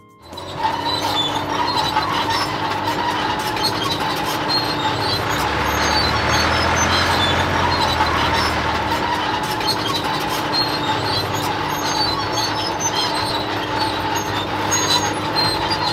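A vehicle running steadily, with a continuous clatter over a steady hum. Its lower rumble swells for a few seconds in the middle, and the sound cuts off just after the end.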